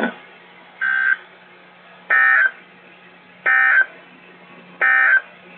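Four short electronic beeps in a NOAA Weather Radio broadcast, one about every second and a third, heard through a weather radio receiver over a faint low hum. They fill the gap between two spoken broadcast segments.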